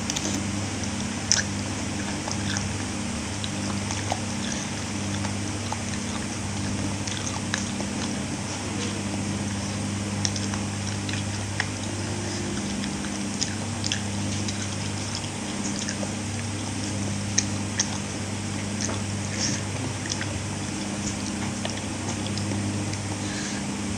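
A person eating rice with long beans and bakso meatballs: chewing with many scattered small clicks, over a steady low hum.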